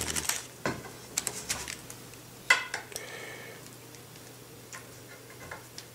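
Light metallic clicks and clinks from handling raw aluminium V-slot extrusions and a steel digital caliper, the caliper jaws set against a profile; scattered single clicks, the sharpest about two and a half seconds in.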